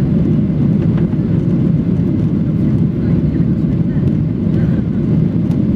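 Steady, loud low rumble of jet engine and airflow heard inside the cabin of a Boeing 737-700 climbing out just after takeoff, its CFM56-7B engines at climb thrust.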